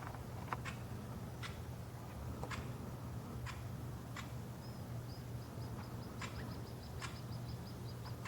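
Crimson-crested woodpecker tapping on wood: single sharp knocks at irregular intervals, roughly one a second. From about five seconds in, a rapid high trill of short notes from a bird runs alongside.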